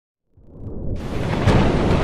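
Thunder rumbling up out of silence and swelling to a loud, steady roll, with a short sharp crack about one and a half seconds in: a storm sound effect.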